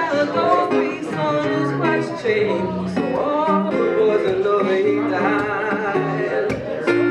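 Live blues performance: an acoustic guitar played with a woman's voice singing into a microphone.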